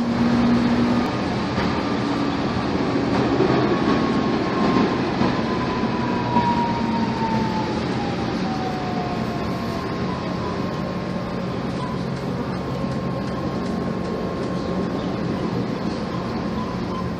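Tatra T3 tram running, heard from inside the car: steady rolling noise and low electrical hum, with a motor whine that falls in pitch from about four to ten seconds in as the tram slows.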